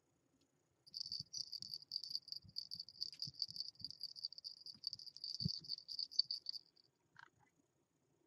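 Small round bell on a puppy's collar jingling rapidly for about six seconds, shaken by the puppy scratching its neck with a hind leg, with soft thumps of the scratching underneath.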